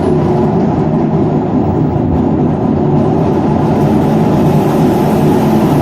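A loud, steady machine drone with a low hum, unchanging throughout.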